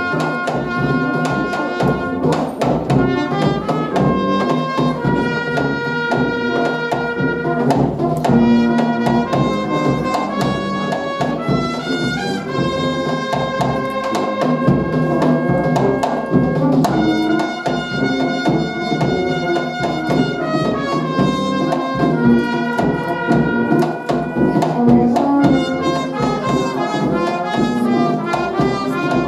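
Brass music, led by trumpets playing a melody of held notes over percussion.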